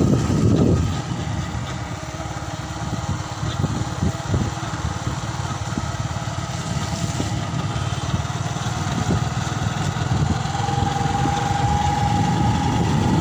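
Motorcycle engine running at low speed with a steady low pulsing. A held high tone joins for a few seconds near the end.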